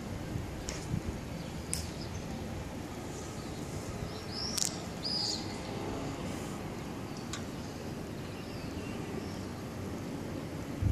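Steady outdoor background noise with two short, high bird chirps about four and a half to five seconds in, and a few faint clicks.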